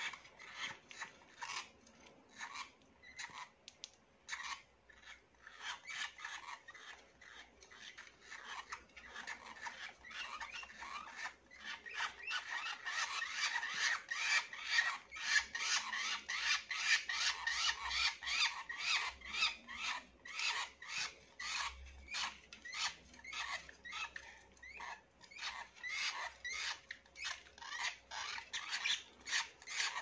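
Caged lovebirds chattering: a quick, continuous run of short high chirps and squeaks, fuller and louder through the middle.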